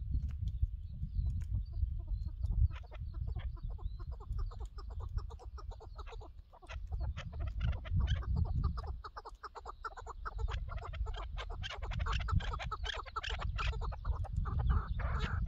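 Chukar partridges calling: a long run of short, clucking notes that comes faster and louder through the second half. A low, gusty rumble of wind on the microphone lies under it.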